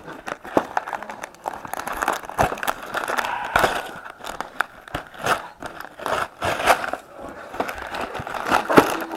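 A Lego set's packaging being opened and handled by hand: crinkling and crackling packaging with many small clicks and taps.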